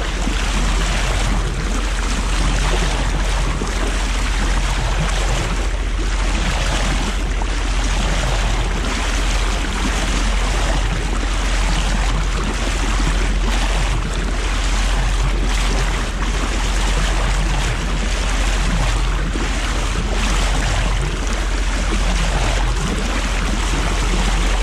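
Bow wave of a C&C 30 sailboat splashing and rushing along the hull, heard close to the waterline, swelling and easing every second or two over a steady low rumble.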